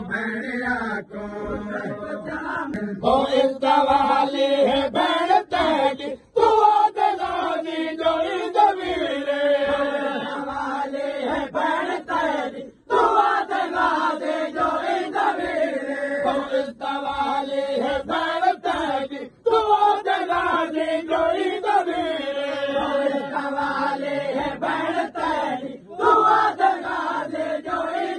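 A group of men chanting a noha, a Shia Muharram lament, together in long sung phrases, with brief breaks between lines about every six to seven seconds.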